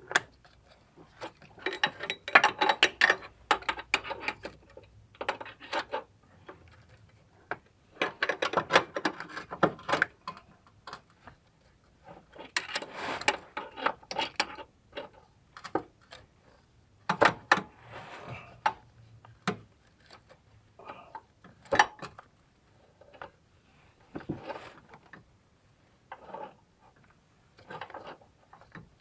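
Ratchet wrench clicking in short bursts of rapid clicks, over and over, as it turns the forcing screw of a puller on an A/C compressor clutch.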